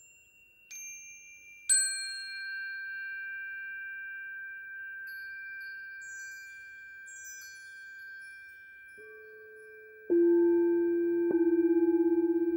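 Metal chime bars on a wooden base struck twice with a mallet, each ringing on in a high clear tone, with faint high tinkling a few seconds later. About ten seconds in, a frosted crystal singing bowl is struck with a wand and rings loud and low, struck again a second later and pulsing as it sounds.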